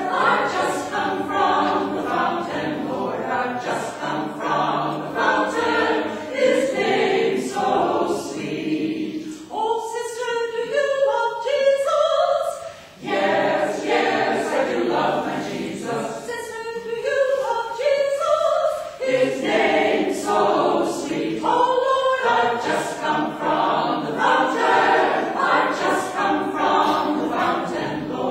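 Church chancel choir of mixed men's and women's voices singing an anthem. Twice in the passage the low voices drop out, leaving a thinner, higher line, before the full choir comes back in.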